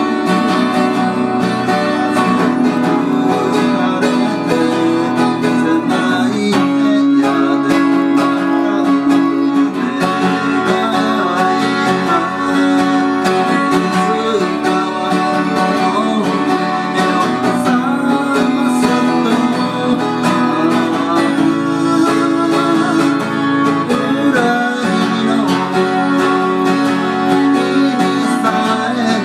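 A Takamine twelve-string acoustic guitar strummed steadily in chords.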